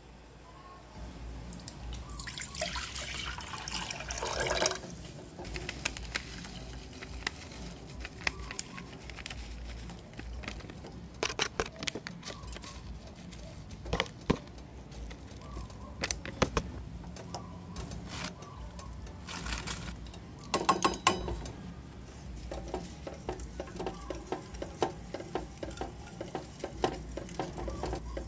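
Water poured into a stainless steel pot. Scattered clinks follow, then near the end a silicone whisk stirring gulaman powder into the water with quick, even ticks against the pot.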